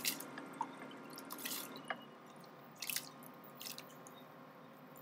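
Soaked long-grain rice tipped by hand from a glass bowl into a pan of hot water: soft wet splashes and drips in a few short bursts, with light clicks of the bowl.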